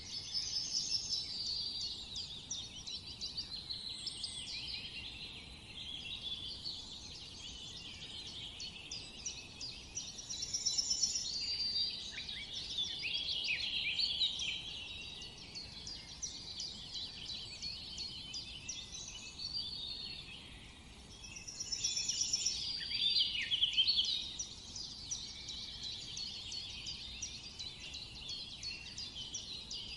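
A chorus of many small birds singing and chirping at once, with dense overlapping trills and quick high chirps. It swells louder a few times, most strongly about two-thirds of the way through.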